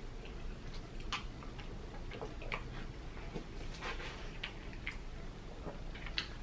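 Close-up mouth sounds of someone chewing a mouthful of burger: soft, irregular wet clicks and smacks, a few seconds apart or less.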